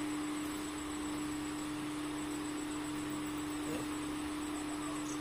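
Electric pedestal fan running, giving a steady, even motor hum.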